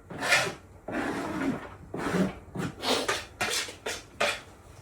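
A run of short, irregular knocks and scrapes of kitchen utensils and dishes: chopped onion being set aside.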